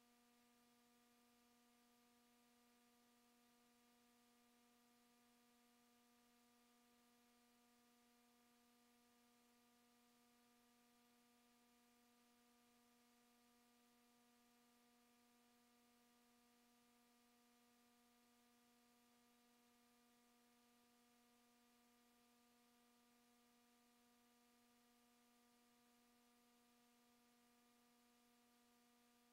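Near silence, with a faint steady hum holding one pitch and its overtones.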